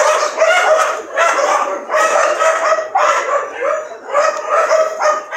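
Dogs barking and yipping over and over while playing, a call every fraction of a second with no break.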